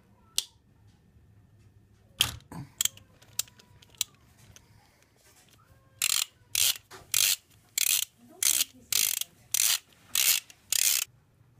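Socket ratchet wrench turning a bolt on an outboard engine's head: a few scattered clicks, then from about halfway a regular run of about ten short ratcheting buzzes, roughly two a second, as the handle is swung back and forth.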